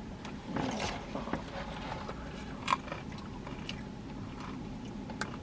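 A person biting and chewing food, with scattered small crunches and mouth clicks and one sharper click a little under three seconds in.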